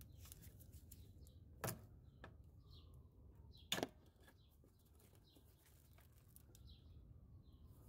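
Two sharp plastic clicks about two seconds apart, with a few fainter ticks, over near silence: the clips of a wire guide on a Ford F-150's battery distribution block being popped loose with a clip remover.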